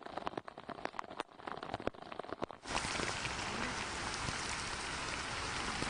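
Rain: at first scattered separate drop hits, then about two and a half seconds in a sudden switch to a dense, steady downpour.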